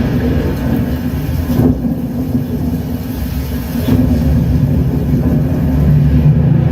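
Deep, continuous rumble from a film or Dolby demo soundtrack played through a Zebronics Zeb 9530 5.1 soundbar and its subwoofer, with heavy bass and a couple of sharper hits.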